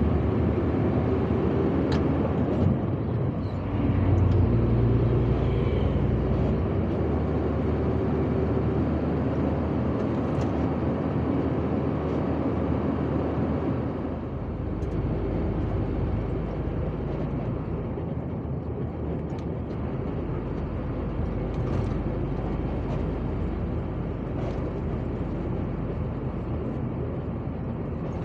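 Steady engine and road noise of a moving vehicle on a paved road, a low rumble with tyre hiss. It gets briefly louder about four seconds in and a little quieter from about fourteen seconds.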